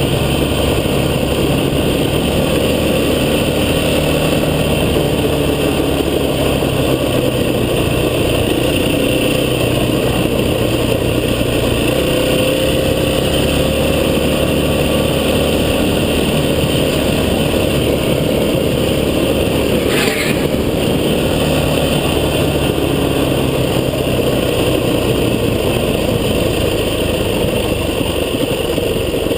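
An off-road vehicle's engine running steadily while driving, its pitch drifting slowly up and down, under a constant rushing noise. A brief click comes about twenty seconds in.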